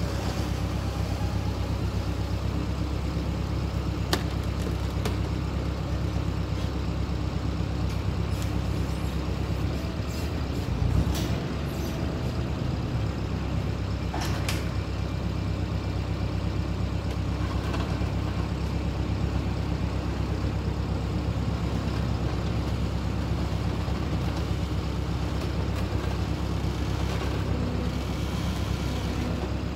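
Telehandler engine running steadily as its boom raises a heavy air receiver tank, with a few sharp clicks over the drone.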